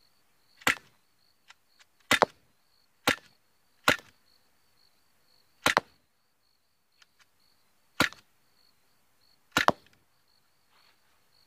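Sig Sauer P320 CO2 air pistol firing seven sharp shots at an uneven pace, roughly one to two seconds apart.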